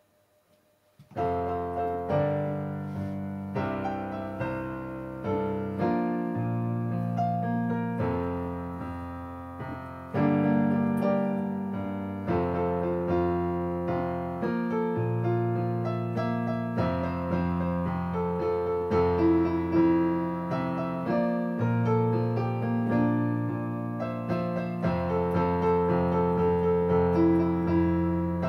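Solo piano playing a slow piece, with held bass notes under chords and a melody, starting about a second in.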